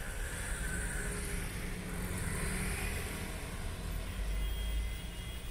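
Steady low rumble of vehicle noise, swelling slightly about four seconds in.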